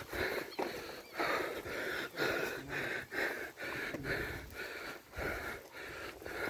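A cyclist breathing hard and fast, about two breaths a second, from heavy exertion.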